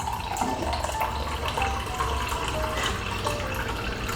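Cold brew coffee being poured, a steady splashing trickle of liquid with small clinks.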